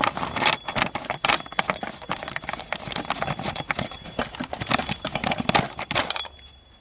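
Footsteps and handling clatter on a hard floor: a quick run of irregular knocks and clicks that stops about six seconds in.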